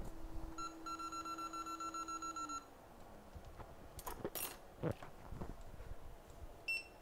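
Hot-air rework station's blower humming, then winding down and falling in pitch about two and a half seconds in, and starting to pick up again right at the end. A rapid electronic beeping runs for about two seconds from half a second in, a few light clicks of tools come a second or so later, and a short beep sounds near the end.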